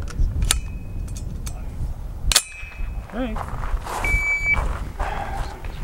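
A 9mm AR-style pistol-caliber carbine being loaded: a magazine clicks into place, then, about two seconds in, the bolt slams forward to chamber a round with a sharp, ringing metallic clang. Near the end there is a short, steady electronic beep.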